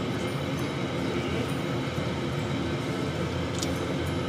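Large stainless steel pot of water at a rolling boil, bubbling steadily with fish cakes cooking in it.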